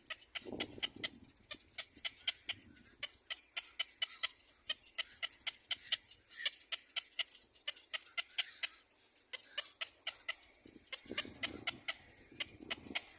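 Baby bird screaming: a rapid run of short, sharp, high-pitched chirps, about five a second, with a low rustle about half a second in and again near the end.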